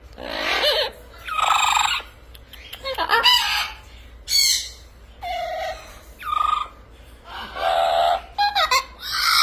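Pet parrot chattering and squawking: a string of about eight short calls, each sweeping up and down in pitch, with brief pauses between them.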